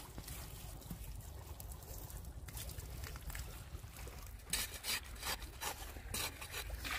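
Hands squelching and patting wet mud, packing it around the mouth of a buried clay pot, with a quick run of wet slaps from about four and a half seconds in.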